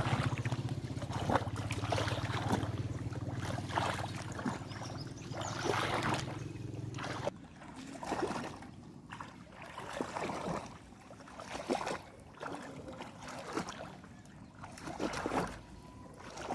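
Shallow water splashing and sloshing in short, irregular bursts. A steady low motor hum runs under it and cuts off suddenly about seven seconds in.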